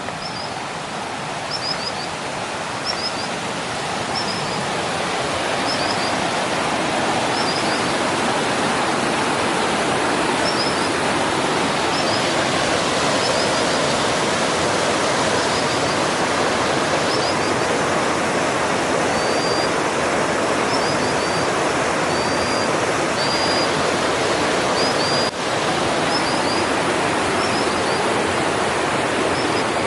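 River water rushing steadily, growing louder over the first several seconds. A small bird calls above it throughout, with short high chirps about every second or so.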